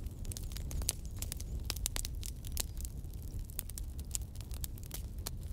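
Irregular crackling and popping over a steady low rumble.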